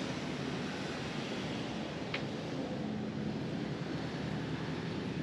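Steady street ambience of road traffic, with one brief sharp high sound about two seconds in.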